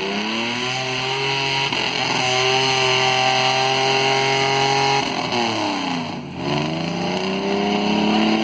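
Off-road vehicle engine revving hard: the engine is held at high revs, drops off about five seconds in, then climbs again.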